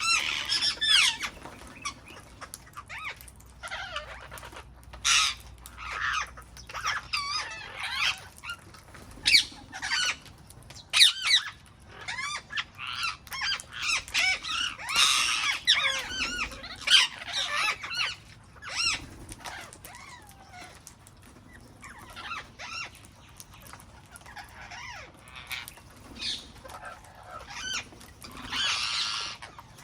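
A group of wild parrots calling: many short calls in quick succession, often overlapping, busiest about halfway through and again near the end.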